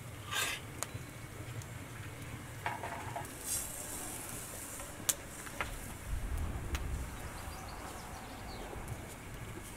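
Granulated sugar poured from a bowl into a metal pan, a soft rushing hiss, with a few light clicks of dishes.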